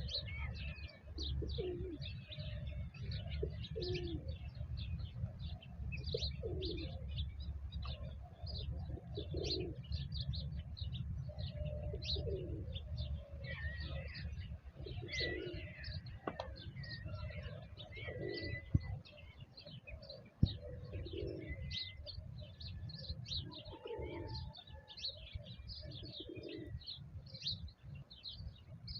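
Pigeons cooing over and over, a low call about every second or two, with small birds chirping busily above them. A steady low rumble runs underneath, and two sharp clicks come a little past the middle.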